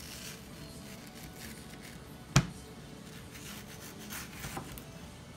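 A single sharp knock on a plastic cutting board a little over two seconds in, as the mango is set down or the knife meets the board, then soft scraping as a kitchen knife cuts into the mango near the end.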